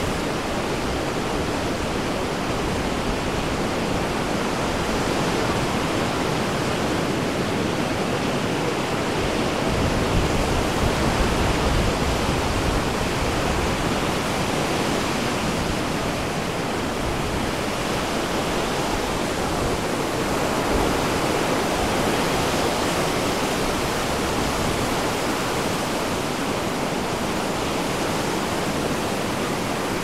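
Ocean surf breaking on a beach: a steady wash of noise that swells a little about ten seconds in and again around twenty seconds.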